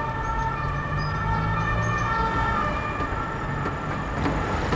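Audience applauding in a hall, with several steady tones held over the clapping.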